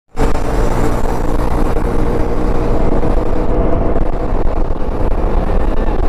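Yamaha XMAX 300 scooter's single-cylinder engine running steadily at cruising speed, with heavy wind rumble on the microphone.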